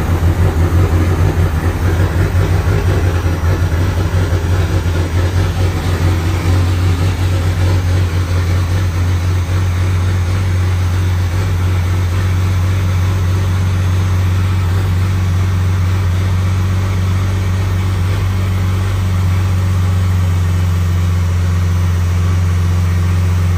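A 12-valve Cummins 5.9-litre inline-six diesel in a second-generation Dodge Ram idling just after a cold start, heard from inside the cab. It is uneven for the first several seconds, then settles to a steady idle.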